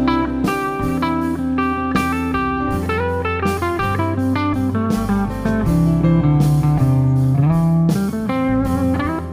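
Live band playing an instrumental passage: electric guitar over bass and steady drum and cymbal hits.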